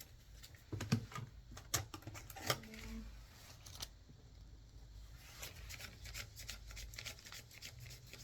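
Cash from a register drawer being counted by hand: paper bills rustling and flicking, with scattered light clicks.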